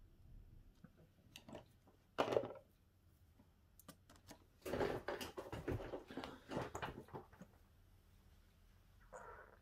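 Hands handling a smartphone and its small parts: scattered small clicks, a louder knock about two seconds in, then a run of clicks and rustling handling noise in the middle.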